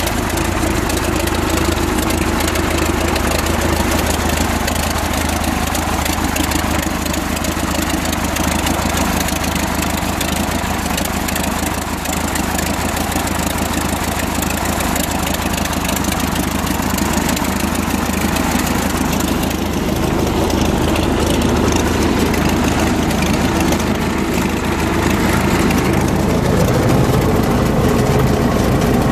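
Allis-Chalmers 20-35 tractor's four-cylinder engine idling steadily, growing louder about three-quarters of the way in.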